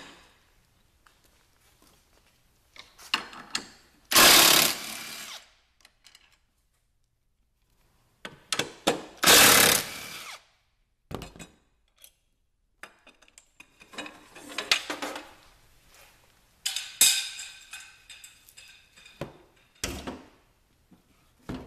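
Milwaukee cordless driver running in two bursts of about a second and a half each, about 4 and 9 seconds in, backing out the snowmobile gas tank's mounting bolts. Scattered metallic clinks and rattles follow in the second half.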